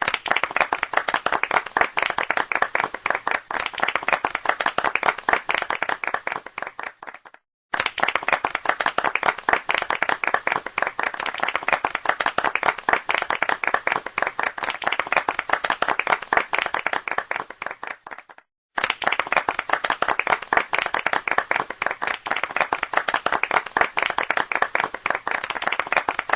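Crowd applauding: many people clapping in a dense, even patter. It breaks off twice, about 7 and 18 seconds in, with a sudden split second of silence before the clapping resumes at the same strength.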